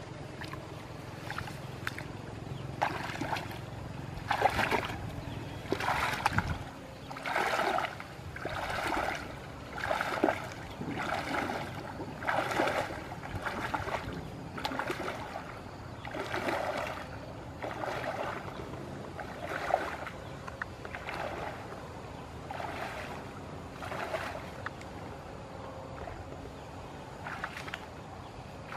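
Legs wading through shallow stream water, a splashing swish with each stride at roughly one a second. The strides are loudest through the middle and grow fainter near the end.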